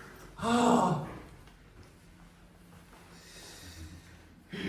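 A man's groaning "ah" about half a second in, falling in pitch and lasting under a second: a vocal reaction during a chiropractic adjustment.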